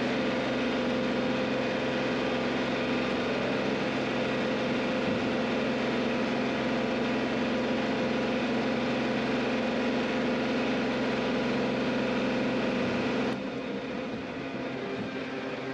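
John Deere compact tractor's diesel engine running steadily while the tractor works. About 13 seconds in, the sound cuts abruptly to a quieter, duller run of the engine.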